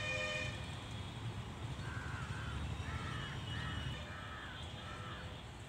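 A crow cawing, a run of about six short harsh caws between about two and five seconds in, over a low steady background rumble.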